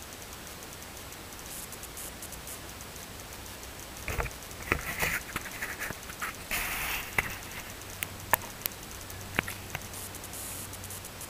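Handling noise from a camera being swung round on its metal tree-stand arm: rustling and scraping for a few seconds, then several sharp clicks and knocks.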